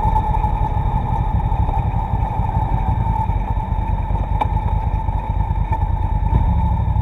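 Motorcycle engine running at low speed, a steady low rumble as recorded by the bike-mounted dashcam's own microphone, muffled with the highs cut off.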